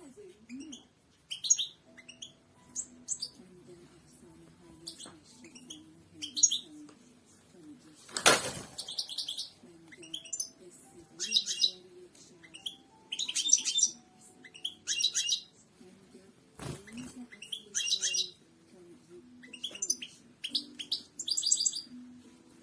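European goldfinch singing: bursts of rapid, twittering song phrases repeated throughout. A brief sharp noise cuts in twice, about eight seconds in and again near seventeen seconds.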